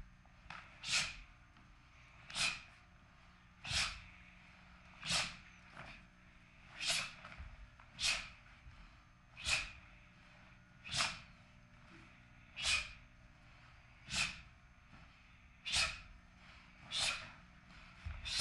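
A martial artist's short, sharp forced exhalations, about thirteen of them, roughly one every second and a half. Each is a breath expelled hard as a technique of the Taekwon-do pattern lands, with faint foot thuds on the floor beneath some of them.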